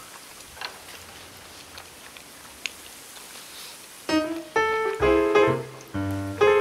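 A few faint clicks over a low background, then piano music starts about four seconds in, playing separate notes.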